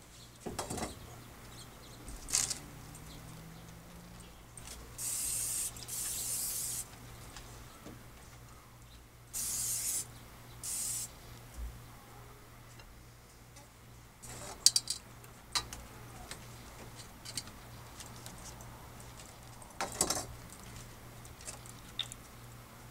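Aerosol cooking spray hissing: one burst of about two seconds, then two shorter bursts a few seconds later. Scattered metal clinks and knocks from tongs and the grill grate come before and after.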